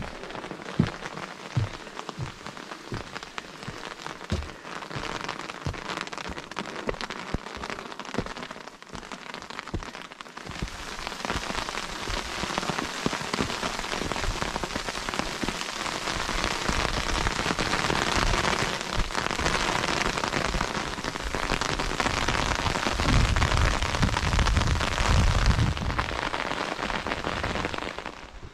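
Steady rain falling on a wet stone path and vegetation, with many close drop ticks, growing heavier and denser about ten seconds in. A low rumble rises under it near the end.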